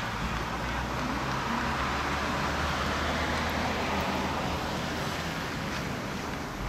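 A rushing noise that swells about a second in and eases off again after a few seconds, over a steady low hum.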